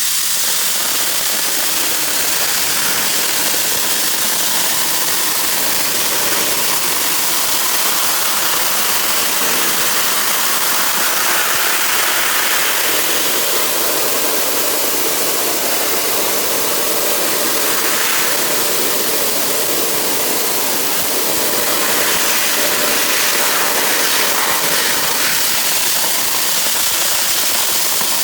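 Coldjet dry ice blaster spraying pellets on compressed air: a steady, loud hiss of air and ice from the nozzle while soot is blasted off.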